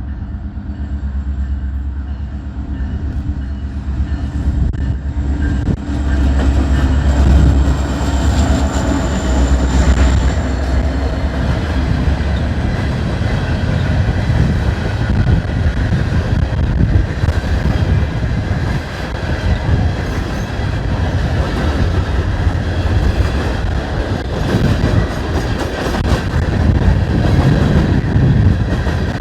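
A BNSF freight train passing close by. Locomotive diesel rumble builds over the first several seconds, then the cars roll past with a steady rhythmic clickety-clack of wheels over the rail joints. The cars look empty.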